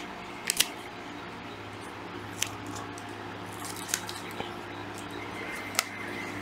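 Masking tape being handled and pressed onto the plastic body of a cordless drill: a few light clicks and taps over a low steady hum.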